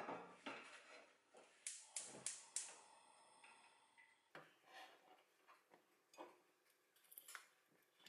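Gas hob burner being lit: a metal clank as the pan goes onto the grate, then the igniter clicking four times, about three clicks a second. A few faint knocks and clinks follow.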